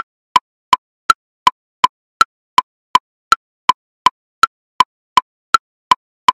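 Metronome clicking triplets at 54 beats per minute, about three clicks a second: a higher woodblock click on each beat followed by two lower clicks.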